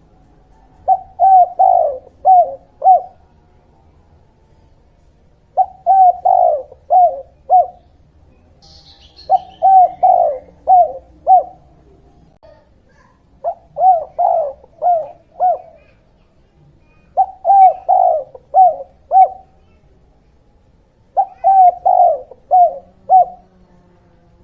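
A dove cooing in six repeated phrases, each of four or five short, quick coos, a phrase about every four seconds; a recording used as a lure call for trapping doves.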